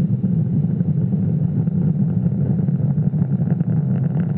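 Falcon 9 first stage's nine Merlin 1D engines firing during ascent, heard as a loud, steady low rumbling noise.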